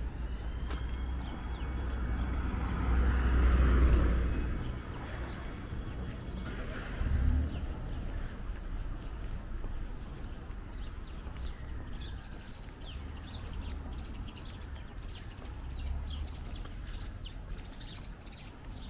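Small birds chirping in quick, repeated short notes through the second half, over a steady low rumble. About three to four seconds in, a louder rush swells and fades.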